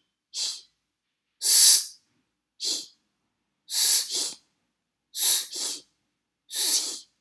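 A man's voice hissing voiceless fricatives as pronunciation drill: an 's' and the German palatal 'ch' (as in 'ich' and 'bisschen') in short separate bursts. Later the two come in quick pairs, the gap between them closing until they run together near the end.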